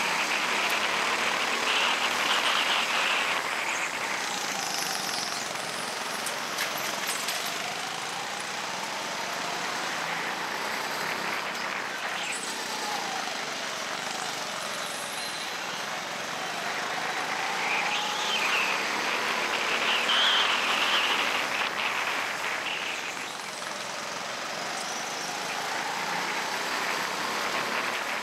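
Go-kart engine heard from on board the kart, its pitch climbing and falling several times as the kart speeds up along the straights and slows for the corners.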